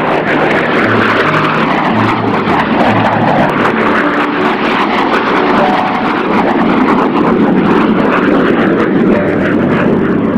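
F-86 Sabre jet fighter flying by, its turbojet engine making a loud, steady rushing noise.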